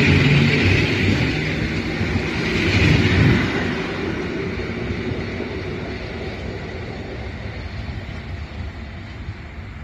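Electric multiple unit running past close by on the station track, wheels and motors loudest as the end car goes by about three seconds in, then the sound fades steadily as the train pulls away into the distance.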